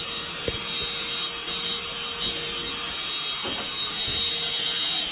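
Vacuum running steadily with a constant high whine, sucking lint out of a dryer vent. A faint knock about half a second in.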